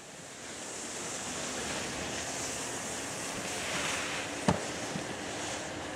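Skis sliding on packed snow and wind rushing over the microphone while skiing downhill, a steady hiss, with one sharp click about four and a half seconds in.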